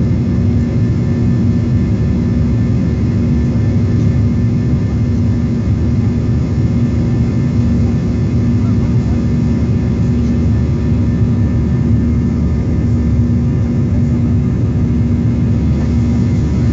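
Airliner cabin noise during the climb after take-off: the underwing jet engines and the airflow make a steady low rumble with a steady hum over it.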